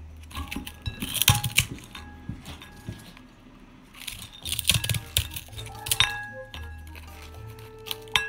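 Crisp cracking and clinks as a microwave-puffed Himalayan yak cheese dog chew is cut into pieces with metal kitchen shears, the blades knocking against a ceramic bowl. It comes in short clusters about a second in, around four to five seconds in, and near the end, with faint background music underneath.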